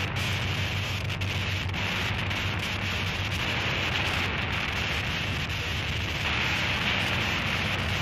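Harsh noise music: a dense wall of crackling static over a steady low hum, the upper hiss swelling about two seconds in and again about six seconds in.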